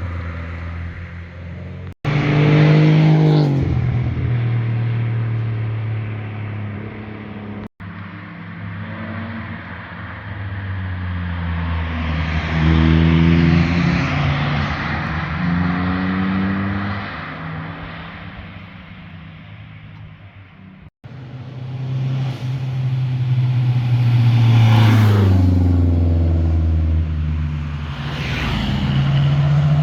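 Several performance cars passing one after another, engines revving through the gears and exhausts dropping in pitch as each goes by. The separate passes are joined by abrupt breaks.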